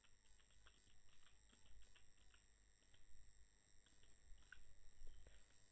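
Near silence with faint computer-keyboard typing: light, irregular key clicks. A faint steady high-pitched tone runs underneath.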